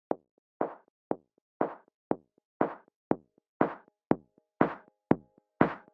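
Background music: a percussive beat of about two hits a second, alternating a short sharp hit with a longer ringing one, growing steadily louder.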